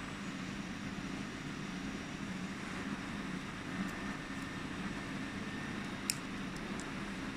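Steady low machinery hum with a few small clicks of plastic hoses and fittings being handled, the sharpest about six seconds in.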